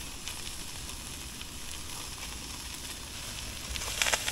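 Fish head and backbone sizzling gently in a hot stainless-steel pot on a portable gas burner, a steady crackling hiss as the pieces are warmed without browning. About four seconds in it gets louder, with a few sharper crackles as the pieces are pushed around in the pot.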